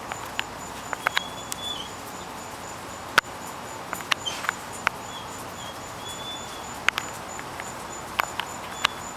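A kitten tussling with its leash and harness on a concrete driveway: scattered sharp clicks and taps, the loudest about three seconds in. Underneath is a steady, evenly pulsing high chirp of insects, with a few short chirps.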